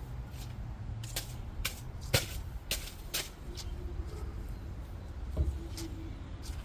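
Irregular sharp clicks and rustling from handling bags of dry concrete mix during a dry-pour slab job, the loudest click about two seconds in.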